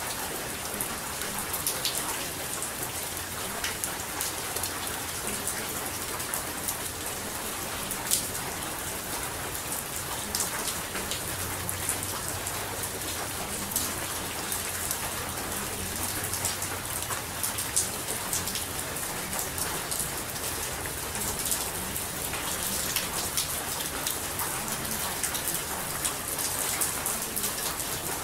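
Steady rain falling, an even hiss with many small drop hits scattered through it.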